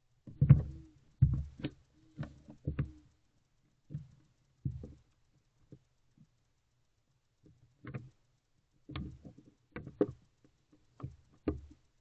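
Barn owl moving around inside a wooden nest box: irregular knocks, thumps and scuffs of its feet and body against the wooden walls and the shaving-covered floor. They come in two bursts of activity with a pause in between, and the loudest knocks fall in the first second.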